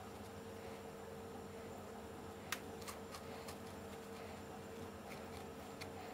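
Quiet, steady hum with a few faint small clicks, the sharpest about two and a half seconds in, from hands and a ball-tipped modelling tool working leather-hard clay.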